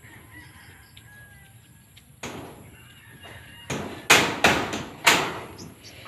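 Hammer blows on corrugated iron roofing sheets: one sharp strike about two seconds in, then a quick run of louder, ringing strikes past the middle, typical of nailing the sheets down onto the roof frame.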